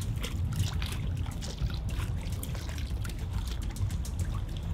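Small waves lapping and splashing irregularly against a concrete piling close by, over a low steady rumble.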